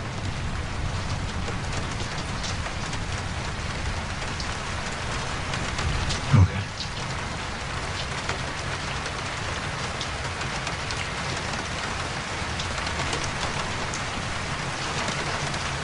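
Steady rain, with a brief thud about six seconds in.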